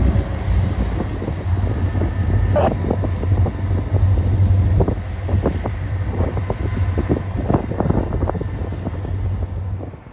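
Cars of a stone freight train rolling past: a steady low rumble with many sharp clanks and knocks from the wheels and couplers, and a thin high squeal over the top. The sound drops away sharply near the end.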